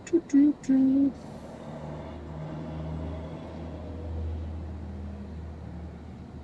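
A few short, steady-pitched hummed voice sounds in the first second, then a low vehicle engine rumble that swells about four seconds in and fades again.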